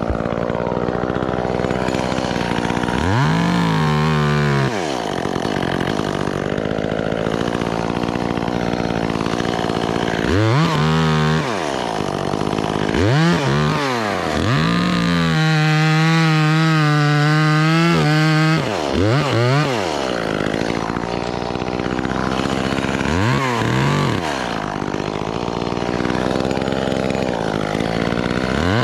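Gas chainsaw idling and revving up in repeated short bursts, dropping back to idle between them, as pine limbs are cut; about halfway through it holds at full throttle for a longer cut of three or four seconds.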